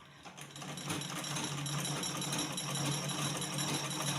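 Manual Butterfly black-head sewing machine running, its needle stitching fabric with a rapid, steady clatter that starts about half a second in. The stitch-length control is set to 7.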